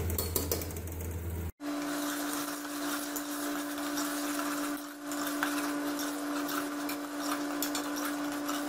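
Metal ladle stirring and scraping chicken and taro pieces frying in an aluminium pressure-cooker pot, with frequent small clinks against the metal. Underneath is a steady hum: a low hum breaks off suddenly about a second and a half in and gives way to a higher, steady hum.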